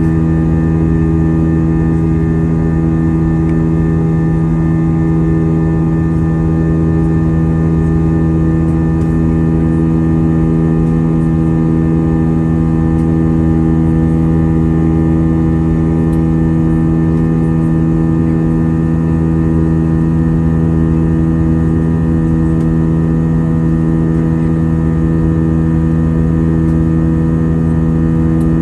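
Airbus A320's turbofan engines at climb power, heard from inside the passenger cabin: a loud, steady drone with several humming tones over a low rumble.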